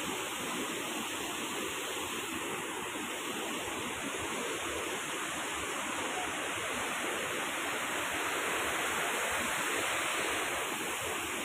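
Rushing river water flowing steadily, an even, unbroken noise of running water.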